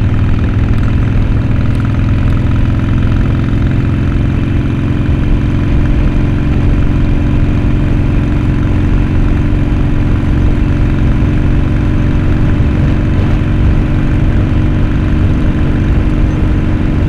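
Harley-Davidson motorcycle's V-twin engine running steadily at a low, even speed.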